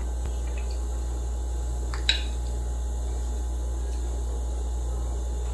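Steady low electrical hum, with a single faint click about two seconds in.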